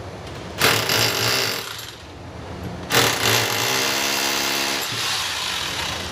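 Corded electric drill boring into a concrete wall. It runs in two goes: a short burst about a second long, then a longer run of about three seconds at a steady motor pitch.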